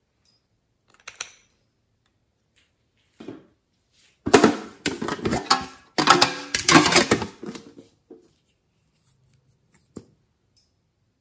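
A metal tin being handled and shaken, clattering loudly in two stretches of about a second and a half each. A few soft clicks come before and after.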